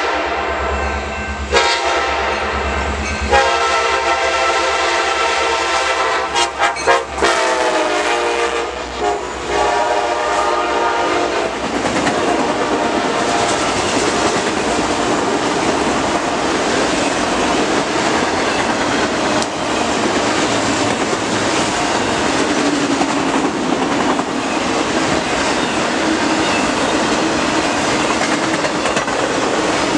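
Freight train passing a grade crossing. The lead locomotive's air horn sounds with short breaks in the first few seconds, and its pitch drops as the locomotive goes by. About 11 seconds in the horn stops, and the autorack cars roll past with a steady noise of wheels on rail.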